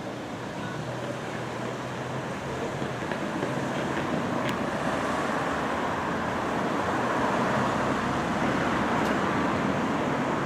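Road traffic at a street crossing, a steady wash of engine and tyre noise that grows louder over the first several seconds and then holds steady.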